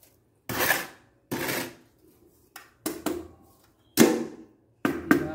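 Steel trowel scraping mortar across the back of a decorative stone tile, twice, then a few knocks and a quick run of light taps near the end as the stone is tapped into place against the wall.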